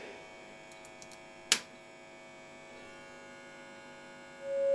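Rebuilt valve organ amplifier humming and buzzing through its speaker, a mains buzz that the builder puts down to the tube filaments; a sharp click comes about one and a half seconds in. Near the end a steady signal-generator test tone starts, much louder, through the amplifier.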